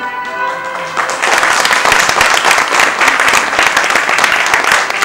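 Theatre audience applauding, many hands clapping, starting about a second in as held musical tones give way.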